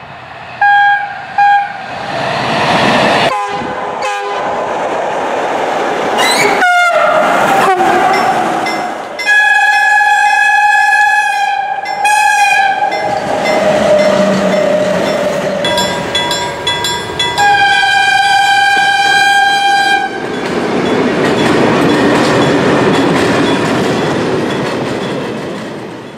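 Train horns sounding repeatedly: two short toots, then a horn whose pitch falls as the train passes, then two long blasts. The horns give way to the steady rumble and clatter of a passing train, which fades near the end.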